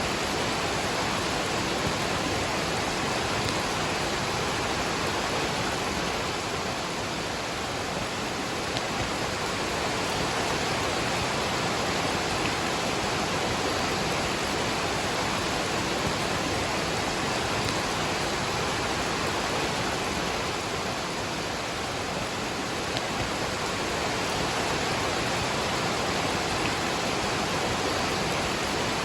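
Waterfall rushing steadily together with falling rain: an even, unbroken wash of water noise.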